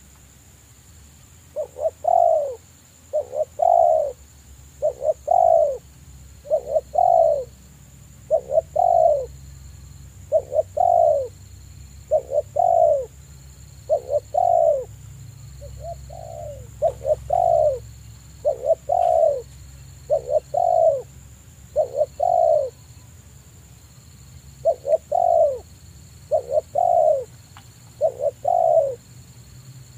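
Spotted dove cooing: a steady series of low, two-part coos about one every second and a half, with a pause of a couple of seconds a little past the middle.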